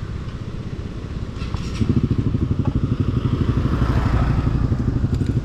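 Motorcycle engine running with a rapid, even pulse, getting louder about two seconds in, with a couple of light clicks.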